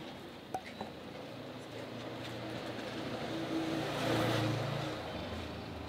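Street traffic: a motor vehicle's engine passing by, its hum growing louder to a peak about four seconds in and then fading.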